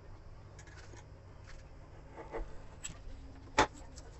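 Faint scraping and rubbing of fingers and a utility knife along the sealant bead at the rim of a composite kitchen sink, with a single sharp click about three and a half seconds in, the loudest sound.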